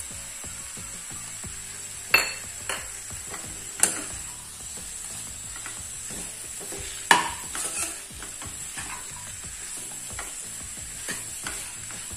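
Onion, spice and chopped tomato masala sizzling steadily in a granite-finish non-stick pan while a steel spatula stirs it, scraping and knocking sharply against the pan a few times, loudest about seven seconds in.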